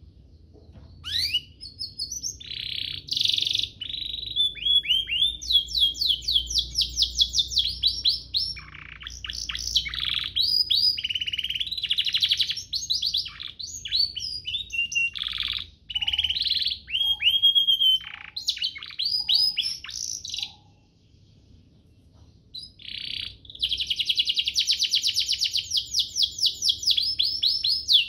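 Domestic canary in full song: long strings of rapid trills and quick repeated sweeping notes, broken by a pause of about two seconds past the middle, then a dense fast trill near the end.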